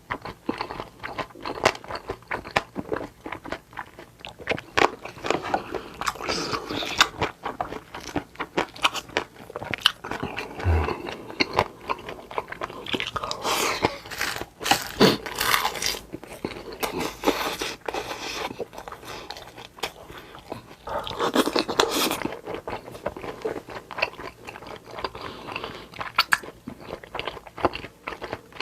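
Close-miked eating sounds: chewing and crunchy bites of food, a dense run of small sharp clicks with a few longer, louder noisy stretches.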